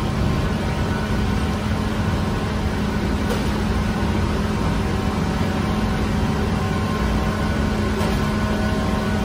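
Bakery machinery running with a steady low hum and a constant drone tone, unchanging throughout.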